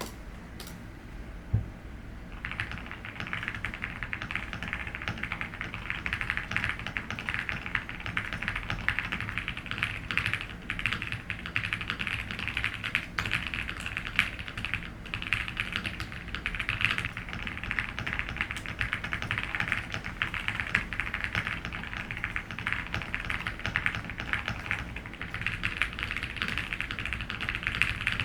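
Fast, continuous typing on a QK75N mechanical keyboard with WS Morandi linear switches, an FR4 plate and PE and plate foam, giving a creamy sound; the typing starts about two seconds in, after a single thump. An air conditioner hums steadily underneath.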